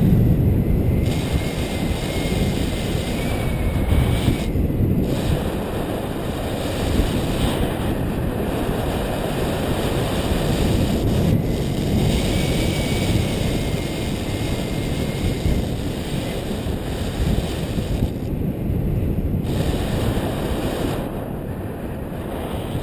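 Airflow rushing over the camera microphone during a tandem paraglider flight: a steady wind rush, heaviest in the low range. A faint thin high whistle comes in and fades twice.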